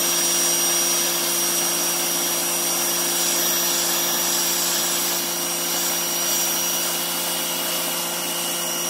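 Greenworks GPW1702 1700 PSI electric pressure washer running steadily, a constant motor hum under the hiss of its water jet blasting grime off concrete decking.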